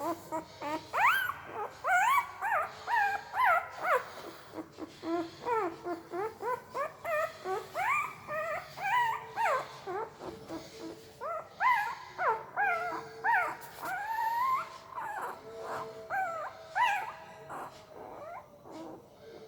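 Newborn pariah-dog puppy whimpering and squeaking in its sleep: a quick string of short, high squeals, many rising in pitch, several a second, with a brief lull partway through and fading near the end.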